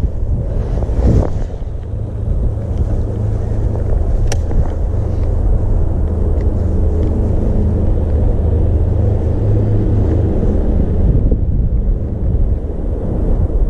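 Steady low rumble of road traffic on the bridge overhead, with a short rush of noise about a second in.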